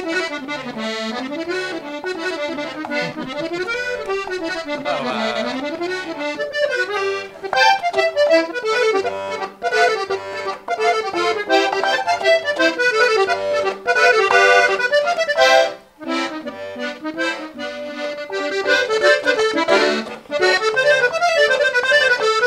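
Three-row diatonic button accordion played solo: a quick running melody over regular bass-button chords, with a brief break about two-thirds of the way through before the tune picks up again.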